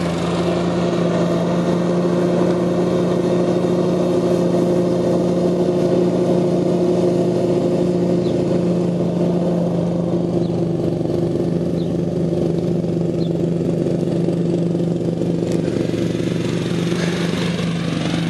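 Case IH ride-on lawn mower's small engine running steadily at constant speed while it mows, a level, unchanging hum.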